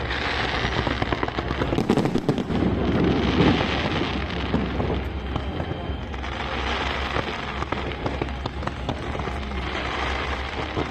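Fireworks going off: a dense, continuous crackle of many small bangs, with heavier booms about two to four seconds in and fresh swells of crackling every few seconds.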